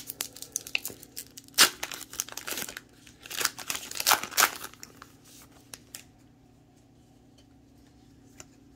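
A paper-and-plastic baseball card pack wrapper being torn open by hand, ripping and crinkling in a run of sharp strokes for about the first five seconds, then going quiet.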